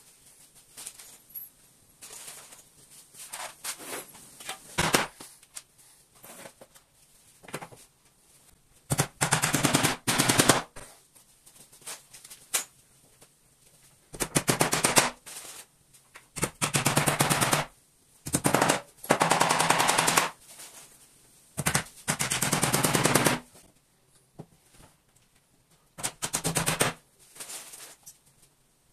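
Short bursts of rapid rattling impacts, like a power tool run in repeated one-to-two-second pulls, about seven in the second half after a few seconds of scattered faint knocks.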